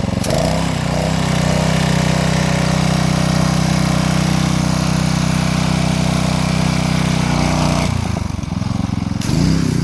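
Gas pressure washer engine running steadily under load while the wand sprays soap solution on the fan setting, with a hiss of water spray over the engine. About eight seconds in the spray cuts off for about a second and the engine note wavers, then the spray starts again.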